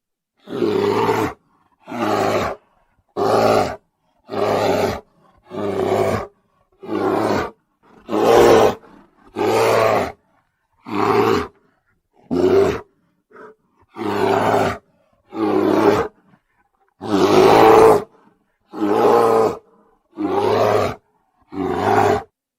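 Brown bear roaring over and over: about sixteen short, deep roars, each roughly a second long, with a brief dead-silent gap between them, as in an edited sound-effect sequence.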